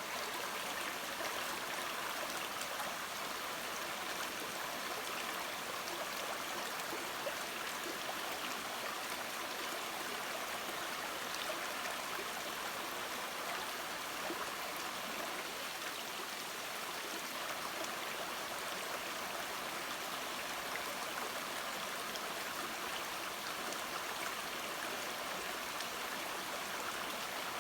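Mountain brook babbling steadily over rocks, with a fine trickling and gurgling texture.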